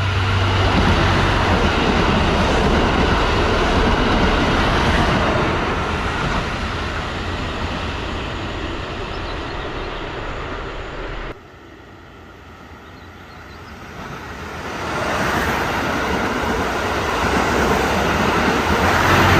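A short train passing below, a loud steady rumble of wheels on the track. It cuts off abruptly about eleven seconds in, and a similar vehicle noise swells up again over the last few seconds.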